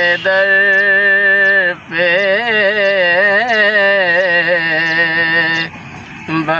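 A man's solo voice singing a naat in long, ornamented held notes. There is a short break for breath just before the middle and a longer one near the end.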